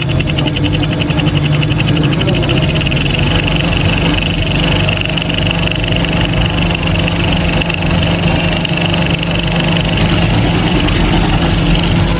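Motorised coil-winding machine running steadily while winding a ceiling fan coil, a constant low hum with a higher whine above it.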